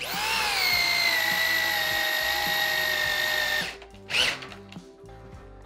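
Corded electric drill boring into a pressure-treated 4x4 wood post: a motor whine that spins up, settles a little lower and holds steady, then stops after about three and a half seconds. A brief sharp sound follows about half a second later.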